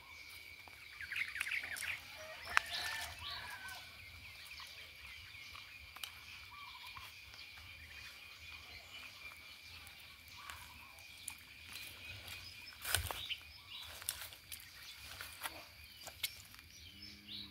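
Outdoor ambience with birds chirping, a steady high thin whine, and scattered rustles and sharp clicks from walking through dry grass and mud; the loudest knock comes about two-thirds of the way through.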